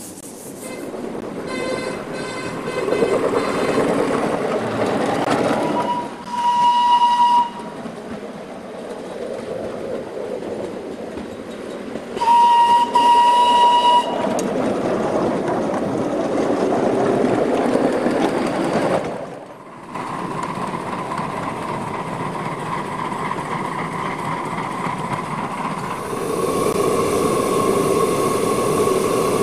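Ride-on live-steam miniature of the Danish F-class tank locomotive F 444 running, with steam and exhaust noise throughout. It sounds its steam whistle twice, a blast of about a second roughly six seconds in and another of almost two seconds about six seconds later. In the last ten seconds there is a steady steam hiss with a faint steady tone.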